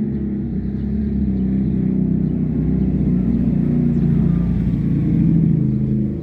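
Motorcycle engine running at a low, fairly steady pitch, getting a little louder near the end.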